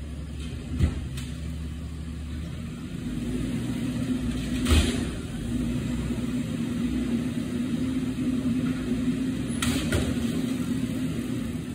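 Garbage truck's diesel engine running steadily, growing louder about three seconds in, with three short sharp knocks spread through the sound.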